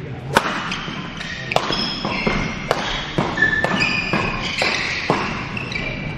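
Badminton rackets striking a shuttlecock in a fast doubles rally: a quick run of sharp hits, about one every half second, with shoes squeaking on the court floor in between.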